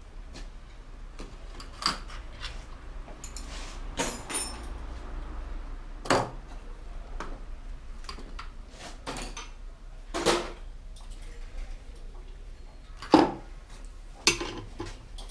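Metal hand tools clinking and clanking as they are rummaged through and picked up: single sharp clanks every couple of seconds, the loudest near the end.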